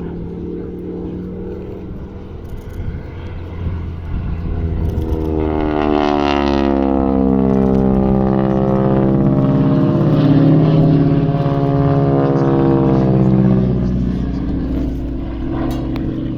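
North American Harvard's Pratt & Whitney R-1340 Wasp radial engine and propeller passing by in flight, growing louder to a peak about ten seconds in and then easing off, with a sweeping, phasing tone as it goes past.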